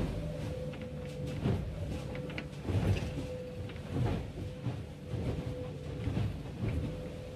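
Cabin noise inside an IMOCA racing yacht under sail: a low rumble from the hull moving through the sea, with irregular knocks and thumps about once a second over a steady background hum.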